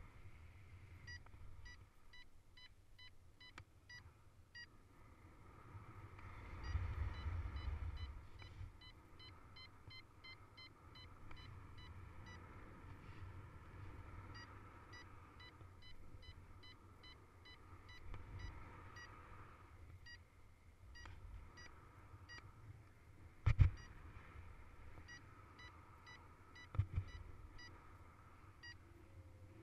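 Paragliding variometer beeping in runs of short, even-pitched beeps, about three to four a second with brief pauses, the sound a vario makes while the glider is climbing in lift. Wind rumbles on the microphone, louder about seven seconds in, and two sharp knocks come late on and are the loudest sounds.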